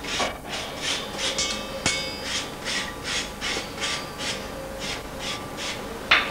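A hand file rasping back and forth over a metal workpiece on an anvil, in quick, even strokes of about three a second.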